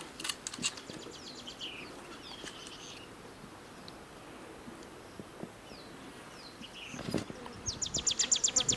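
Wild birds calling: scattered chirps, falling whistled notes and short trills, ending in a rapid trill of about a dozen sharp notes near the end. A faint, steady, very high whine runs underneath.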